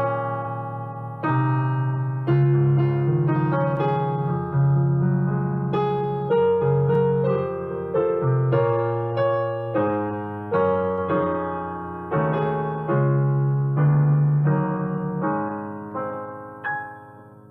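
Solo piano playing slow sustained chords, about one a second, each struck and left to ring and decay. The playing dies away near the end.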